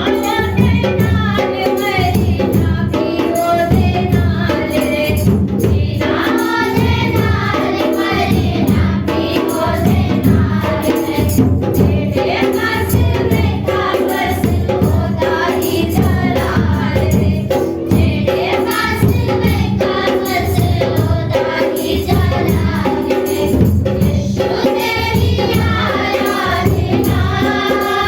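A group of voices singing a Hindi Christian worship song together, with a steady beat and tambourine in the accompaniment.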